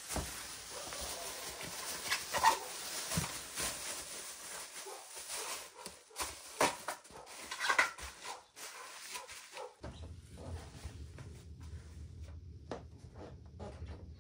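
Plastic cling film being stretched and pressed over a bowl of dough, rustling and crinkling with sharper crackles. About ten seconds in it gives way to a low steady hum with a few light knocks.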